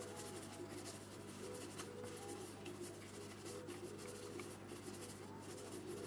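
Wide flat watercolour brush scrubbing and swirling paint in a plastic palette: a faint, irregular bristle rubbing, over a low steady hum.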